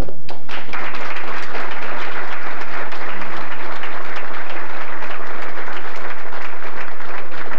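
Audience applauding: many people clapping together, starting a moment in and keeping on steadily.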